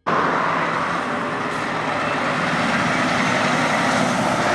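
A heavy truck running, a steady mix of engine and road noise that starts abruptly and holds at a constant level.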